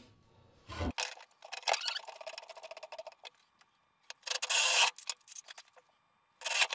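Power drill boring holes in wood, run in several short bursts, the loudest about four and a half seconds in.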